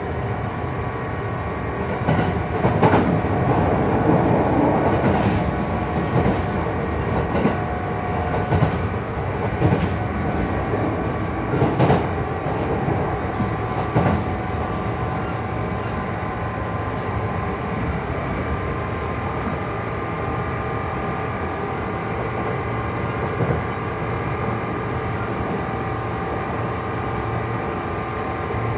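Kintetsu 2800 series motor car running at a steady speed, heard from inside. Its Mitsubishi MB-3110A traction motors and gearing give a steady low-pitched whine mixed with an unusual noise from the drive couplings. Rail-joint knocks come every couple of seconds early on, and the running noise swells for a few seconds near the start.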